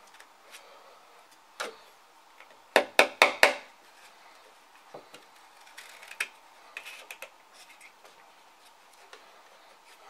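A nail being knocked into a small wooden board: four quick, sharp knocks in a row about three seconds in, after a single knock. Light clicks of handling follow.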